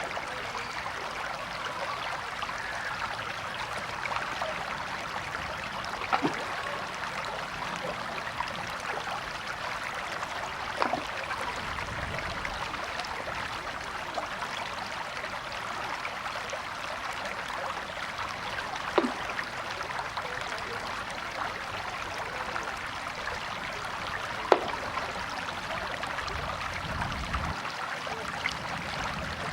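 River water flowing with a steady rushing, burbling sound, broken by a few sharp little plinks of splashing water.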